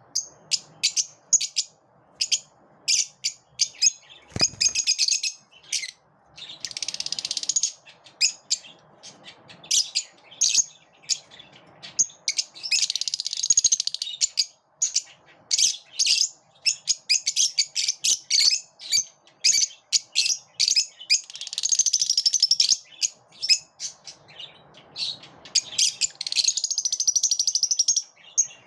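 Lovebirds chirping and chattering: rapid, high-pitched chirps throughout, in dense runs of chatter several times, with a brief low thump about four and a half seconds in.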